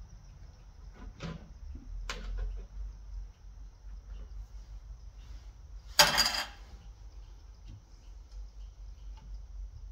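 Light clicks and handling noises from hands fitting the wires at a lawn tractor's new electric starter, with one louder clatter lasting about half a second about six seconds in, over a low steady hum.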